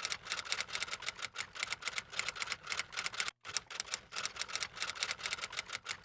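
Typewriter-style typing sound effect: rapid key clicks, several a second, with a brief break about halfway through.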